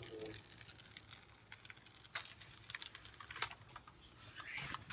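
Faint, scattered clicks and taps from hands handling a sticky diamond painting canvas on a tabletop.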